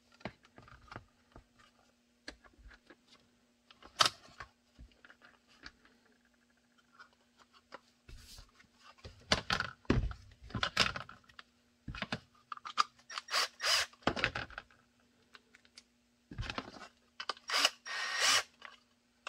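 Workbench handling sounds: clicks and knocks of a kydex holster shell and small screws and posts being picked up and set down. Near the end come short runs of a small cordless drill, its bit working in the holster's mounting holes.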